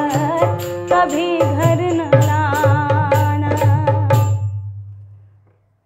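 Dholak beaten in a quick rhythm with deep bass strokes under a wavering sung melody. The final strokes land about four seconds in, and the music fades out.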